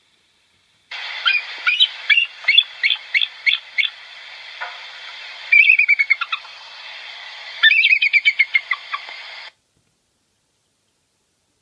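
Eagle calling: three bouts of quick, high, falling chirps, the first a run of about nine notes and the last two denser chittering, over a faint hiss; it cuts off suddenly.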